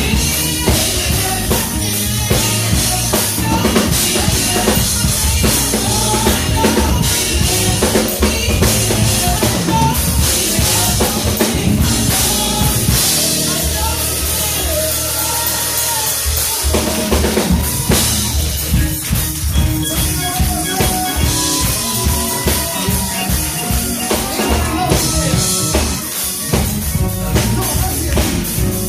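Live gospel band music driven by a drum kit playing a steady beat, with bass drum, snare and rimshots over other instruments.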